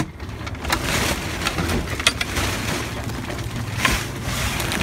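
A combination padlock clicking open on a boat's wooden companionway hatch, followed by the clatter and scraping of the hatch being opened: several irregular knocks with rustling in between.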